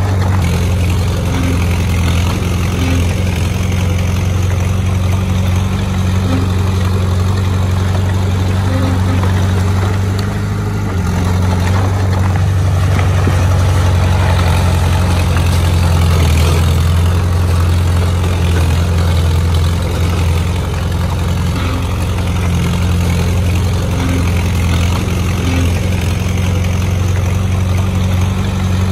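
Diesel engine of a heavy construction machine running steadily with a deep, even drone; about eleven seconds in its tone drops slightly and it gets a little louder.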